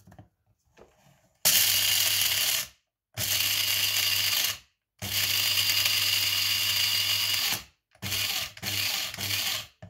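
Electric blade coffee grinder chopping whole roasted coffee beans in pulses. Its motor runs at a steady pitch in three runs of about one and a half, one and a half and two and a half seconds, then three quick bursts near the end.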